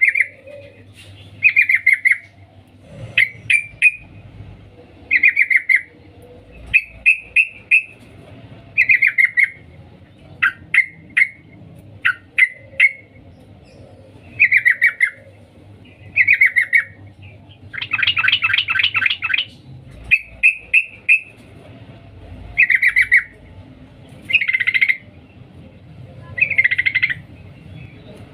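Female yellow-vented bulbul (trucukan) calling the male with its 'cuk cuk' call: short phrases repeated about every one and a half to two seconds, with one longer, rapid chattering run about 18 seconds in.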